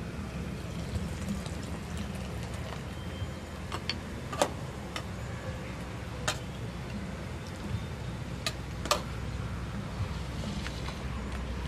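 Kitchen utensils clinking: a metal ladle knocking on an aluminium soup pot and a pestle tapping in a small mortar, about seven sharp taps spread through the middle, over a steady low rumble.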